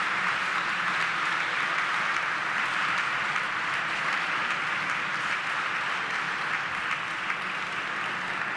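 Audience applauding steadily, the applause slowly dying down toward the end.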